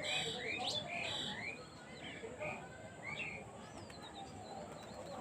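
Small birds chirping: a quick run of short high chirps in the first second or so, then scattered single chirps.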